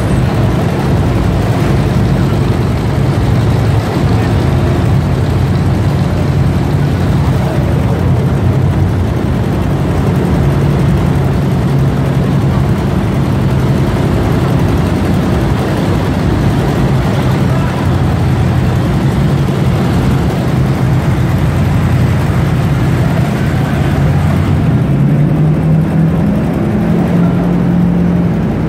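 Demolition derby truck engines running steadily in a concrete tunnel. Near the end the engine note steps up in pitch and holds there.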